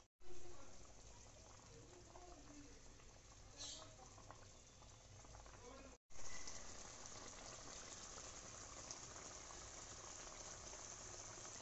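Tel koi, a fish curry in mustard-oil gravy, boiling in a kadai: a steady bubbling hiss that grows louder and fuller about six seconds in.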